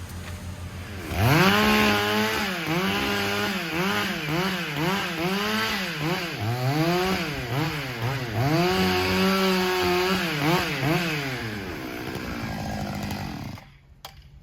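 Gas chainsaw revving up about a second in and cutting wood, its engine pitch dipping and rising again and again as the chain loads in the cut, then easing off and stopping near the end.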